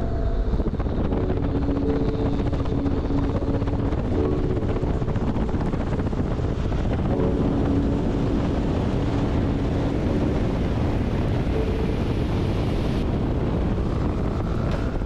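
A motor vehicle on the move: steady road and wind noise on the microphone, with an engine hum that fades in and out.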